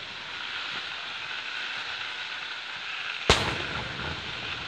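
An aerial firework shell bursts once with a sharp bang about three seconds in, followed by a short trailing rumble, over a steady background hiss.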